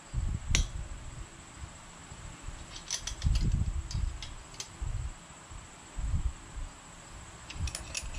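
A wrench working a starter mounting bolt on a small Briggs & Stratton engine: a few short metallic clicks and dull low knocks of tool handling. A faint steady high-pitched tone runs underneath.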